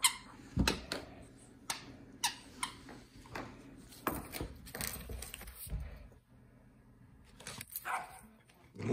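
Great Pyrenees puppy playing on its back, making short yips and vocal play noises among a run of quick knocks and clacks.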